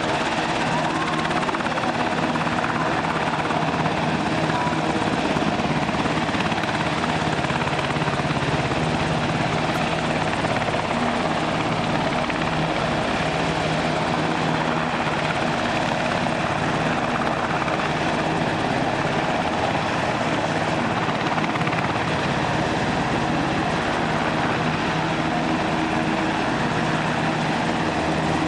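UH-60J rescue helicopter hovering close by, its rotor and twin turboshaft engines running steadily and loudly.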